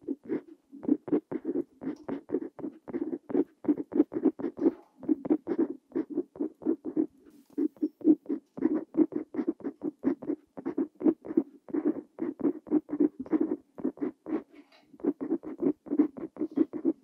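Parker Jotter fountain pen's metal nib scratching across lined paper, writing Korean characters in quick short strokes, several a second, with a few brief pauses between letters.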